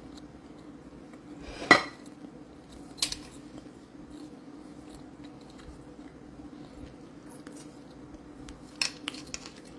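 A ceramic plate clinks once about two seconds in, with a short ringing tone, then a lighter tap a second later and a few soft taps near the end. A faint steady hum runs underneath.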